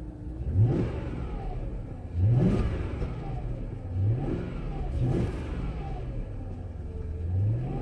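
Jaguar engine idling and blipped five times, each rev rising then dropping back to idle. It sounds really good and strong, running smoothly without a miss, since the idle misfire from failing coil packs only shows once the engine warms up.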